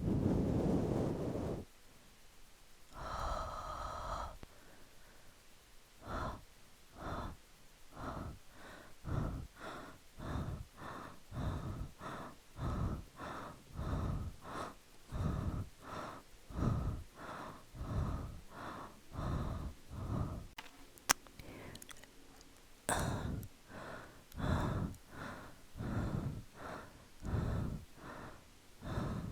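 Close-miked human breathing: a long breath, a longer sighing breath, then a steady run of short, quick breaths about one and a half a second. After a brief sharp click, slower and longer breaths follow.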